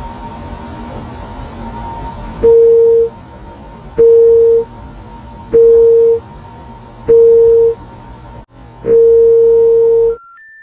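Telephone line tones: five loud, steady beeps about a second and a half apart, the last one held longer, then two short higher tones stepping up in pitch like the start of a phone-company intercept signal. A low hiss and hum runs underneath, alone for the first couple of seconds.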